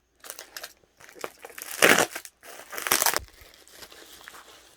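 Packaging crinkling and crunching as it is handled and opened by hand, in irregular rustles with two louder crunches about two and three seconds in.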